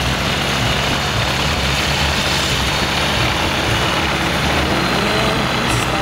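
Apollo weight-shift microlight trike's engine and pusher propeller running steadily at low power as the trike taxis on grass.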